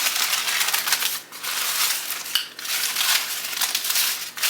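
Takeout packaging crinkling and rustling in bursts with short pauses: a Subway sub being unpacked from its bag and wrapper.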